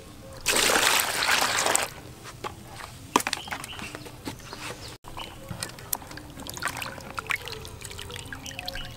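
Water poured into a plastic bowl of canned peas, a loud rush lasting about a second and a half, then small splashes and sloshing as the peas are rinsed by hand.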